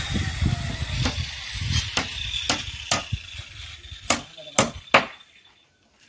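Hammer blows on timber shuttering: about seven sharp knocks at uneven intervals. Under the first half runs a steady hiss that fades out.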